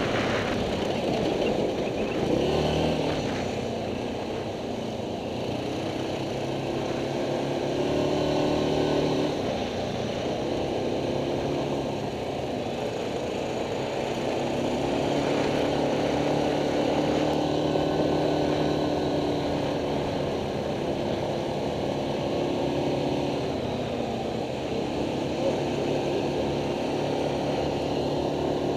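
ATV (quad bike) engine running under way, its note rising and falling again and again as the throttle is opened and eased off.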